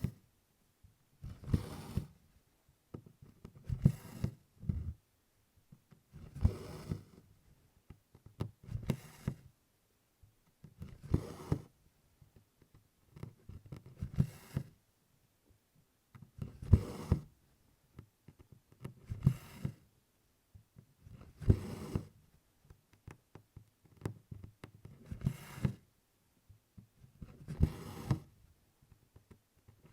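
Needle and stranded cotton floss drawn through 24-count Congress cloth in tent stitch: a short rasp of thread through canvas roughly every two and a half seconds, one per stitch.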